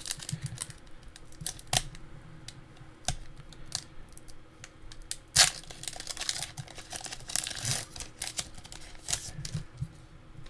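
Foil wrapper of a Pokémon Sword & Shield booster pack crinkling and tearing as it is opened by hand, with scattered sharp clicks of handling; the loudest crackle comes about five and a half seconds in.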